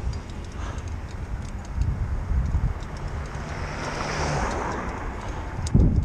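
Wind buffeting the microphone and road rumble on a moving bicycle in city traffic, with a motor vehicle humming alongside and then passing about four seconds in, and a couple of sharp jolts near the end.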